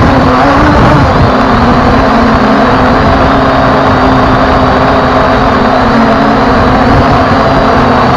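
Quadcopter drone's motors and propellers humming at a steady pitch, picked up by its own onboard camera, with heavy wind buffeting on the microphone.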